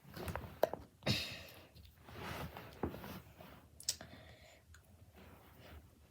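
Irregular clicks and light knocks of a plastic Play-Doh crusher toy being handled and pressed down, with the sharpest ones about a second in and near four seconds.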